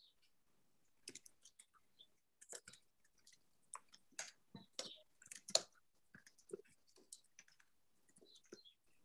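Faint, irregular clicks and crackles, a few a second, picked up over a video-call microphone.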